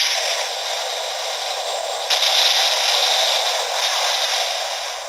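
Toy transformation belt playing a hissing, static-like sound effect through its small speaker, surging again about two seconds in and fading out near the end.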